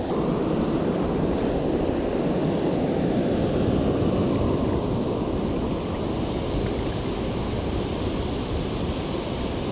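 Steady rushing of water discharging from a dam spillway's outlet gates, mixed with wind on the microphone.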